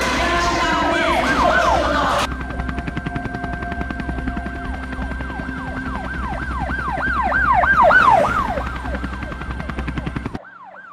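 Emergency-vehicle siren in a fast falling wail, each sweep dropping in pitch, about three a second. It grows louder toward the middle, then cuts off suddenly near the end.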